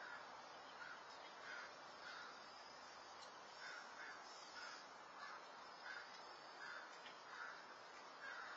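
Crows cawing faintly in a long, repeated series of short calls, about one or two a second, over the steady hiss of a security camera's microphone.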